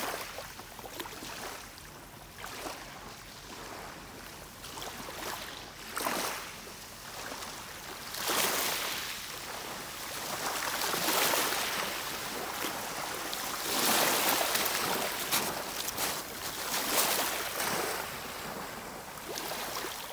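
Small waves washing up and drawing back over a shingle beach, swelling and fading in surges every few seconds.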